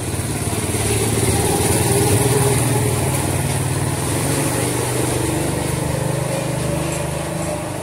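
A small engine running steadily, growing louder over the first two seconds, then slowly fading.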